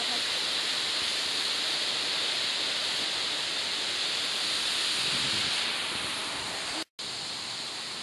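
Steady rush of a waterfall, its falling water making a dense, even hiss. The sound cuts out for an instant about seven seconds in, then goes on a little quieter.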